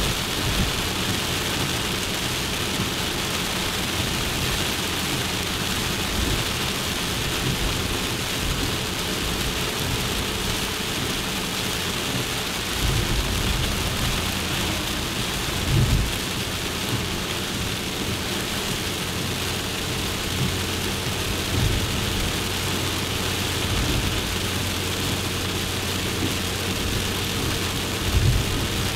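A Suzuki Jimny on the move, heard from inside: a steady rush of road noise over a low engine hum, with a few short low thumps scattered through.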